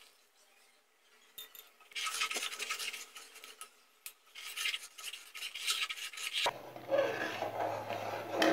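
A steel ladle stirring and scraping a thin mixture of wheat milk and sugar syrup around an aluminium pan. It starts about two seconds in as a rasping scrape with clicks of metal on metal, kept up so the halwa doesn't stick to the bottom. A steady low hum joins in near the end.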